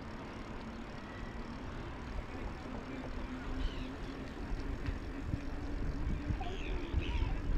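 Wind rumbling on the camera microphone and tyre noise from a bicycle rolling along a paved path. A steady low hum joins about two and a half seconds in, and a few short high chirps sound near the middle and near the end.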